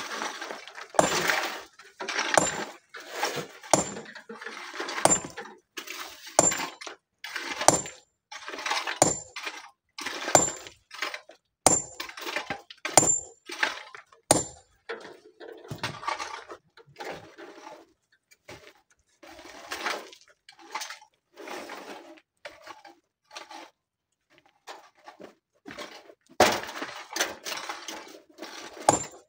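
Hand tools striking rock and gravel: irregular sharp clinks and clatters, several with a brief metallic ring. This is the sound of stone being chipped at a boulder that is being split by hand, with gravel raked and stones knocking together. The clatter eases off for a few seconds past the middle.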